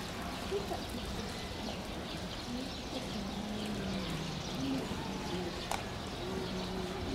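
Background ambience of distant people talking, with faint bird calls.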